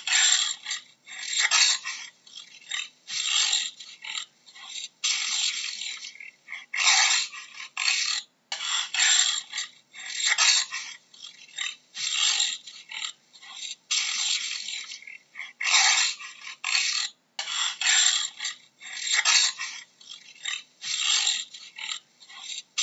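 Jaguar vocalising: a long run of hoarse, unpitched calls, about one to two a second, some short and some drawn out for around a second.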